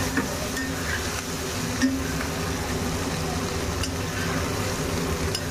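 Sliced onions sizzling in hot mustard oil in a kadhai while they are browned, stirred with a metal spatula that scrapes and clinks sharply against the pan a few times.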